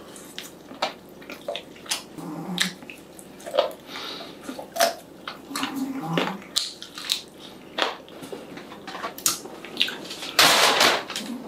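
Close-miked chewing of sticky glazed fried chicken: wet mouth sounds with frequent small smacks and clicks, and a few short hums. Near the end a short, loud rustle.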